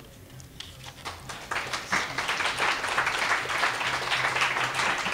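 Small audience applauding at the end of a poem, the clapping starting about a second in and quickly building to a full round.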